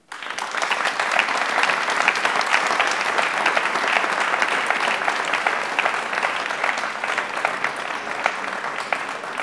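Audience applauding: many hands clapping, starting suddenly and holding steady, thinning a little near the end.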